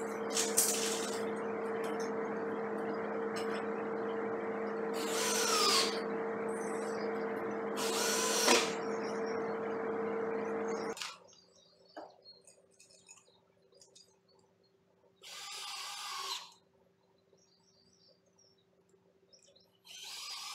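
Cordless drill driving screws in four short bursts, each spinning up and winding down. Under the first two, a steady droning hum runs and cuts off suddenly about eleven seconds in.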